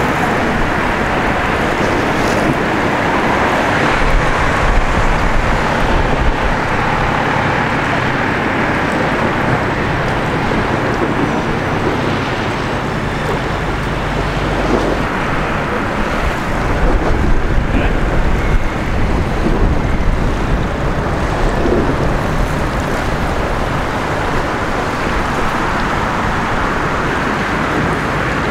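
Steady outdoor mix of road traffic noise and water, with wind on the microphone; it swells a little twice.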